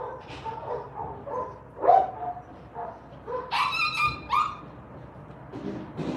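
Dogs yipping and barking in a run of short, high-pitched calls, several a second. The loudest is about two seconds in, and a cluster of sharper yelps follows around four seconds.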